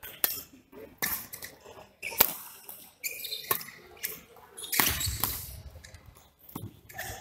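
Badminton doubles rally: sharp racket-on-shuttlecock hits about once a second, opening with a jump smash, with shoes squeaking and feet thudding on the court between shots.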